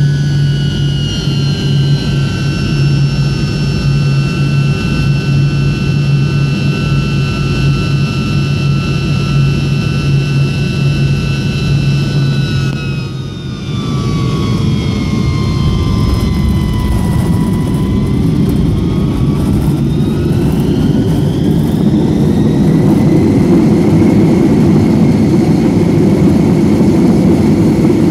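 Tu-154M's rear-mounted Soloviev D-30KU-154 turbofans heard from inside the cabin: a steady whine on short final, a brief drop at touchdown about halfway through, then the whine falls and rises again as the engines spool up for reverse thrust, getting louder over a low rumble of the wheels rolling down the runway.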